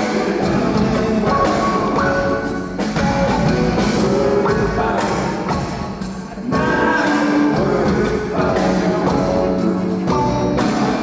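Live rock band playing: two electric guitars over a drum kit, with a steady beat of drum and cymbal hits.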